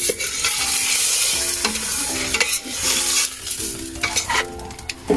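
Salmon head sizzling as it is sautéed with tomato, onion and ginger in a stainless steel pot, a metal spoon stirring and scraping against the pot now and then.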